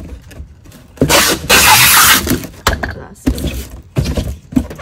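Packing up a cardboard shipping box: a loud, harsh rasp about a second long, followed by four short, sharp knocks and taps of handling.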